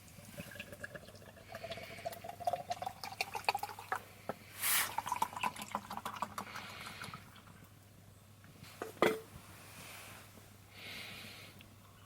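Liquid poured into a container twice, its pitch rising as the container fills, with small drips and clicks. A single sharp knock about nine seconds in.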